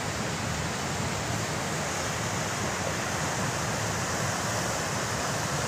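Steady rush of a shallow mountain river running fast over boulders and rapids, an even hiss of water with a low rumble underneath.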